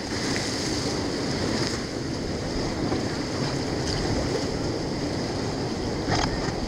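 Steady rush of whitewater in a flooded river rapid, heard from inside a raft, with a short splash-like hit about six seconds in.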